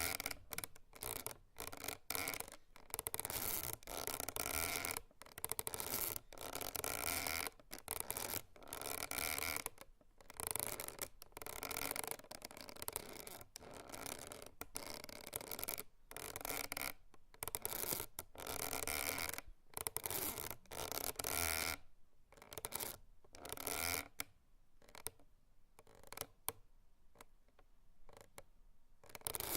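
Hemp rope creaking and rubbing in a run of irregular creaks of varying length with short gaps between, sparser for a few seconds near the end.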